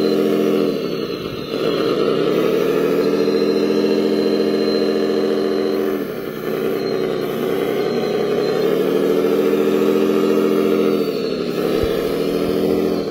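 Radio-controlled wheel loader running with a steady motor drone, its pitch dropping and climbing back three times: about a second in, around six seconds, and near the end. A faint high whine sits over it for the first half.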